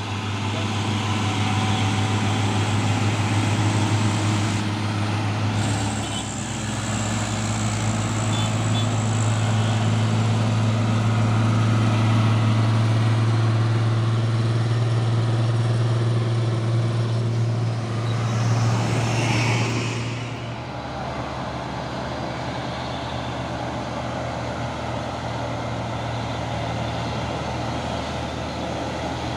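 Heavy truck's diesel engine running with a steady low drone. A brief hiss comes about two-thirds of the way through, after which the engine sound is somewhat quieter.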